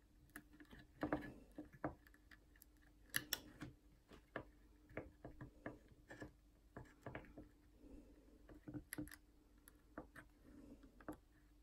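Faint, irregular clicks and taps of small hand tools and wire being handled while a jumper wire is soldered onto a guitar potentiometer lug, over a faint steady hum.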